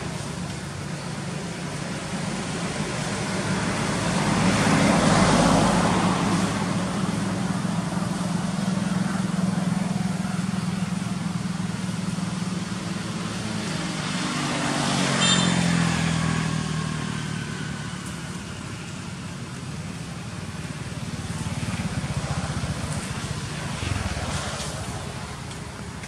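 Road traffic: engines running steadily, with two vehicles passing louder about five and fifteen seconds in. The second vehicle's engine note drops in pitch as it goes by.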